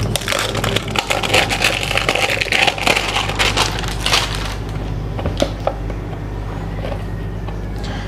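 Plastic shrink wrap on a phone box crinkling and crackling as it is cut and handled, densest in the first half and thinning out later.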